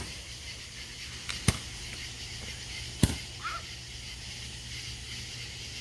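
Three sharp firework bangs, about a second and a half apart.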